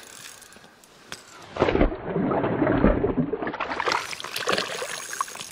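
Water splashing and sloshing in an ice-fishing hole as a hooked rainbow trout thrashes at the surface and is grabbed by hand and lifted out. It starts about a second and a half in and runs loud for about three seconds.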